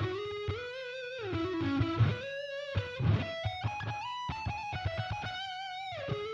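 Electric guitar playing a single-note lead line through a 10-inch guitar amp speaker, with held notes that bend and waver in vibrato between quicker picked notes.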